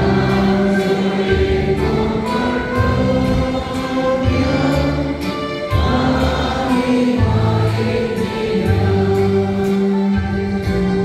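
Church choir singing a hymn with instrumental accompaniment, steady low notes sustained under the voices.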